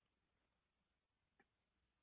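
Near silence: a pause in a webinar recording, with only faint background hiss.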